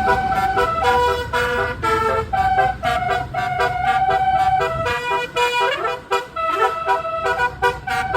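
Indonesian bus 'telolet' multi-tone horn playing a fast melody of short honked notes, with a couple of rising pitch slides after about five and a half seconds. A low engine rumble runs underneath and drops away about five seconds in.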